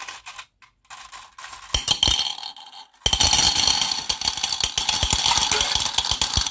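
Small brass balls poured from a glass into a glass tumbler: a few scattered clicks, then a dense clattering rattle of metal balls on glass and on each other, building about two seconds in and running loud and steady until it stops abruptly near the end.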